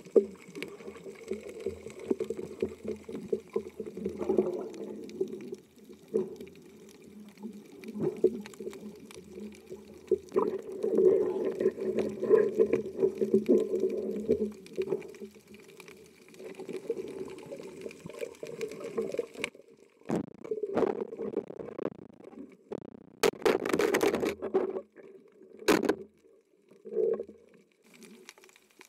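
Muffled underwater water noise picked up by a camera in its housing: a steady low rushing and swirling as the diver moves through the water. In the last third it drops in and out, broken by a few louder bursts and sharp clicks.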